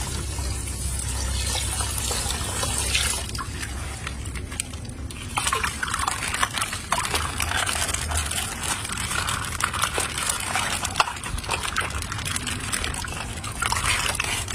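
Water sloshing and trickling, with many small clicks and splashes throughout.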